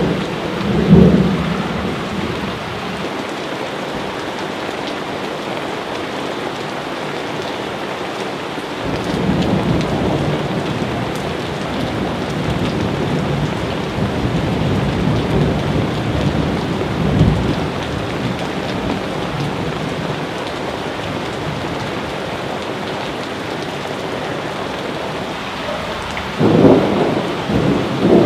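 Thunderstorm: steady heavy rain with rolls of thunder, a rumble about a second in, a longer one through the middle and another near the end.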